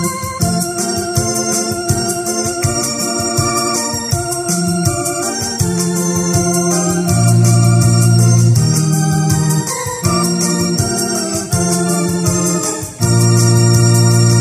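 Electronic arranger keyboard playing a Catholic hymn tune in an organ voice: chords over long held bass notes, with no singing.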